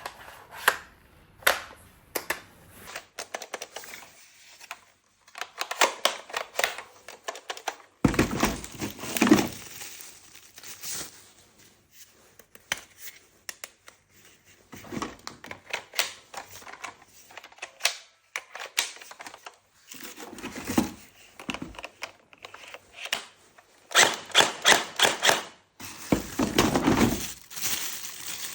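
Hands handling a plastic toy gun and its packaging: irregular clicks and knocks of plastic parts, with stretches of crinkling and rustling, in short bursts separated by brief pauses.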